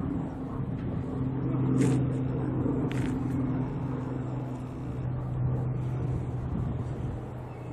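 Steady low hum of an idling engine, with two short sharp clicks about two and three seconds in.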